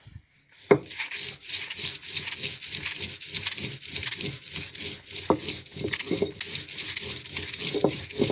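Stone roller of a Kerala grinding stone (ammikkallu) worked rapidly back and forth over grated coconut and ground chillies on the flat stone slab: rhythmic stone-on-stone grinding and scraping strokes. It starts with a sharp knock under a second in.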